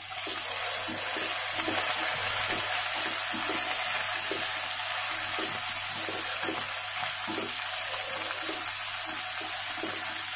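Sliced onions, cashews and green peas sizzling in hot oil in a kadhai, with a steady hiss, while a wooden spatula stirs them and knocks and scrapes the pan at an irregular pace.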